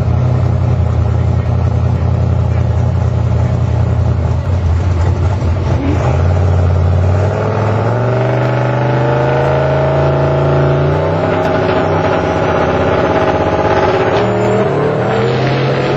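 Turbocharged Ford Mustang engine running at a steady low speed, then accelerating from about seven seconds in, its pitch climbing in stages.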